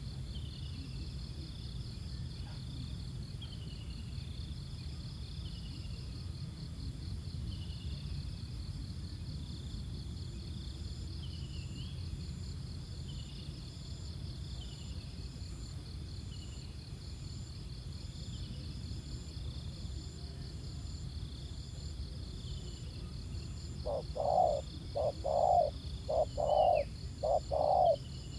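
Steady high insect drone with short falling chirps from a small bird repeating every second or two, over a low rumble. About 24 seconds in, a spotted dove starts cooing loudly, a rhythmic run of short low coos that is the loudest sound.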